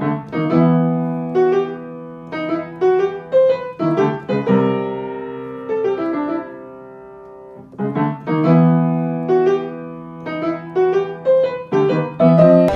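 Solo piano music: a slow phrase of struck notes over held low chords, repeating about every four seconds.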